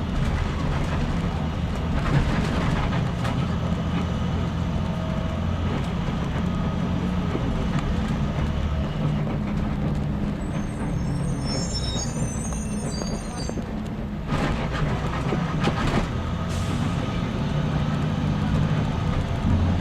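School bus engine running steadily with a low drone whose pitch shifts up and down. A brief high squeal comes about midway, followed by a few short hisses.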